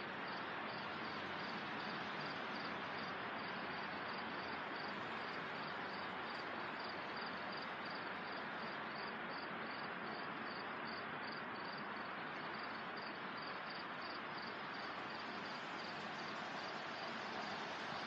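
Steady rush of wind through leafy trees, with an insect chirping in a short, high, even pulse about three times a second.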